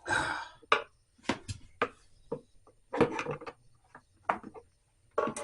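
Hard plastic and metal parts of a Shad SH37 top box's lock and latch mechanism being worked by hand: a short scrape at the start, then a string of irregular sharp clicks and knocks.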